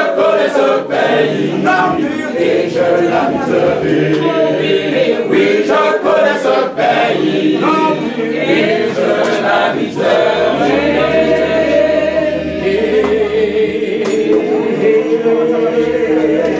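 A group of people singing a hymn together in chorus, many voices on a slow melody.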